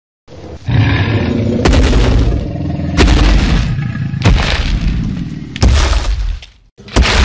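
Dinosaur roar and crash sound effects: six loud, sudden booming hits, one about every second and a half, each with a deep rumble. It dips nearly quiet just before the last hit.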